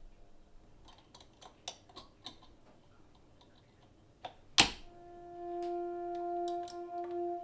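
A few faint clicks and taps, then one sharp, loud pop or snap about four and a half seconds in, after which music comes in with a long held stringed note.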